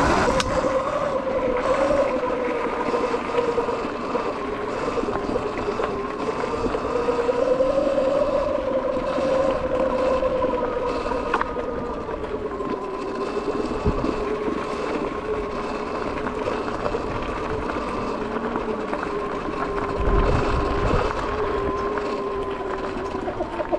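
Sur-Ron X electric dirt bike riding at low speed on a dirt trail: its electric motor gives a steady whine that drifts gently up and down in pitch with speed, over a rough rushing noise of tyres on dirt. There is a sharp knock about 14 seconds in.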